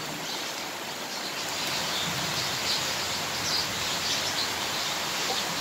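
Steady rain falling, with birds chirping faintly and intermittently through it.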